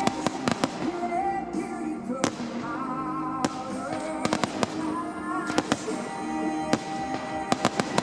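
Fireworks going off in sharp bangs, single and in quick clusters every second or so, over loud music played for the display.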